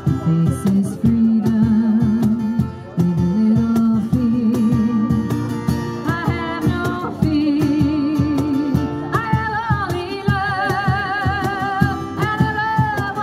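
Live acoustic music: an acoustic guitar strummed under singing, with a lower sung line in the first few seconds and higher notes from about halfway, over a steady percussive beat.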